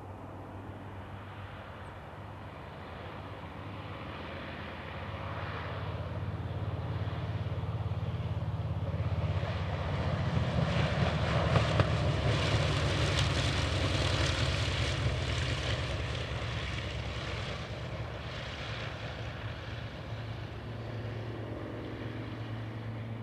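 Douglas A-1 Skyraider's 18-cylinder Wright R-3350 radial engine at low landing power. It grows steadily louder as the aircraft comes in and rolls close past, is loudest about halfway through, then fades as it rolls away down the runway.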